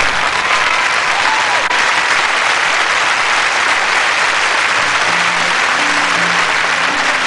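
Studio audience applauding and cheering. A song's instrumental intro begins underneath about five seconds in.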